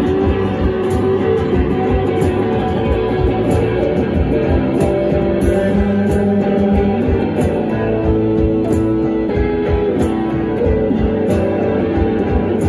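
Live rock band playing loud: electric guitar and bass guitar over a steady drum beat.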